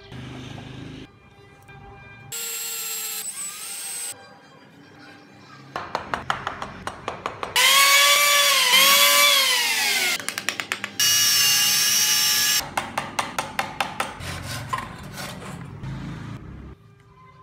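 Handheld electric planer running in three short runs as it shaves the wooden body, its motor whine dipping and falling in pitch under the cut; the middle run, about halfway through, is the loudest. Background music plays underneath.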